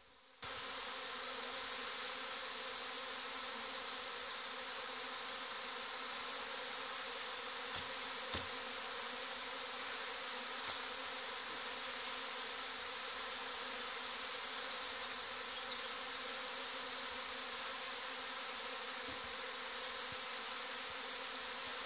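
A swarm of honeybees buzzing steadily as the dense mass crawls back into its hive.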